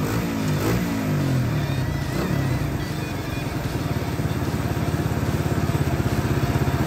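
Suzuki FX125's single-cylinder DOHC four-stroke engine revving hard under load on a dynamometer, in a fast, even exhaust beat that grows louder in the second half. This is a test run after its exhaust header was reworked.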